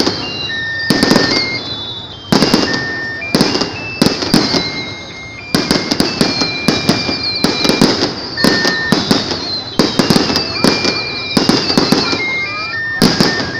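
Fireworks display: aerial shells launching and bursting overhead in quick succession, with many sharp bangs and crackles and high whistles that fall in pitch.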